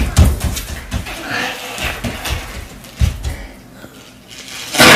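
A person farting: a low, sputtering run of rapid pulses at the start, with voices in between and a short, loud noise just before the end.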